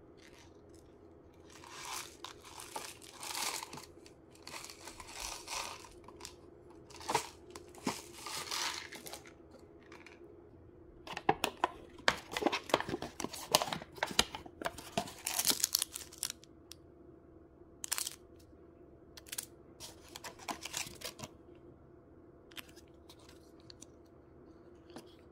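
Cup ramen packaging being torn open and handled: plastic film and the foil-lined lid ripping and peeling in rustling bursts, then a denser run of crinkling and crackling about halfway through as the foil sauce sachets are pulled out and handled, with fewer crinkles near the end.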